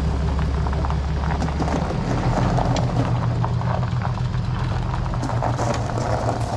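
An engine running steadily under load, its low drone stepping up in pitch about two seconds in.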